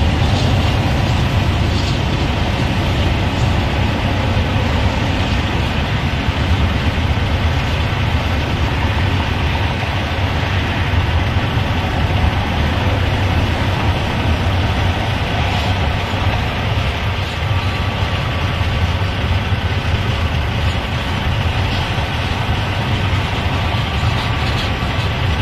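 Freight train's autorack cars rolling past on the rails: a loud, steady rumble of steel wheels on track, with a few faint high ringing tones.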